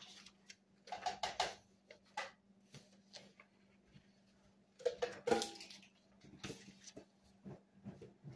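Kitchen clatter of cookware and utensils: a handful of short knocks and clinks, one about five seconds in with a brief ring, over a faint steady hum.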